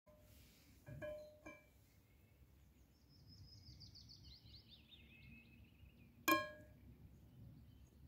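Titanium tactical pen clinking against metal and ringing briefly: two light clinks about a second in, then a louder one just after six seconds. Between them a bird sings a descending trill.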